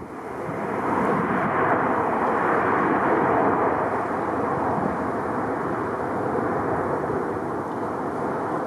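Airliner jet engines running, a loud even rush that builds over the first second or two and then holds steady, with a faint steady whine underneath.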